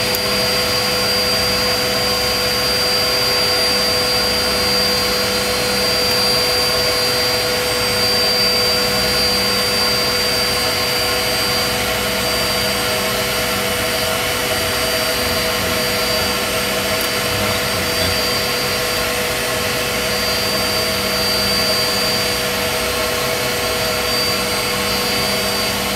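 Steady whine and hum of running equipment inside an Avro Vulcan's cockpit before its engines are started: a constant high tone and a constant middle tone over an even rushing noise.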